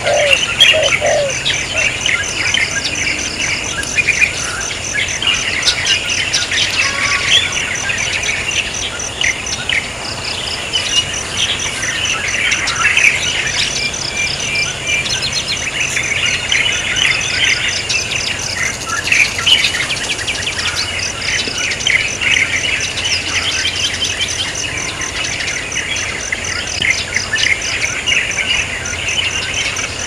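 Many small birds chirping and twittering in quick, overlapping calls, over a steady, evenly pulsing high insect chirp.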